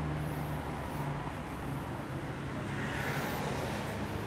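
Steady street traffic noise with a low hum, swelling briefly about three seconds in as if a vehicle passes.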